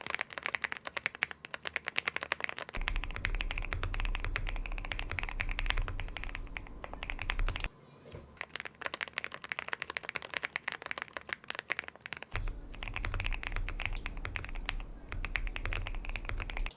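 Fast typing on an Akko M1 V5 aluminium mechanical keyboard with Akko Creamy Yellow Pro linear switches, foams, a tape mod and a bittersweet spacebar, a build aimed at a deep, creamy sound. The keystrokes run in quick flurries with two short pauses, and a low hum sits under the typing in two long stretches.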